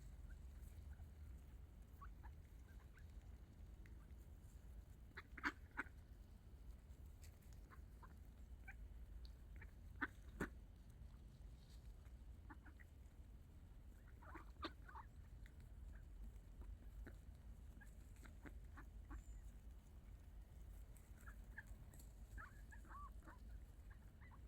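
Faint, scattered short calls of ducks, with a few sharper clicks, the loudest about five, ten and fourteen seconds in.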